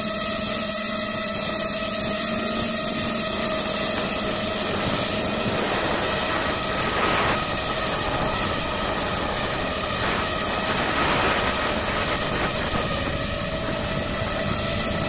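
DJI FPV racing drone's motors and propellers whining steadily over a rush of air noise, picked up by the camera mounted on the drone itself; the pitch dips slightly near the end.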